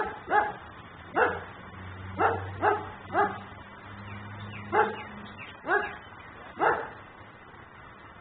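A dog barking repeatedly: about nine short, sharp barks at uneven intervals, stopping about a second before the end.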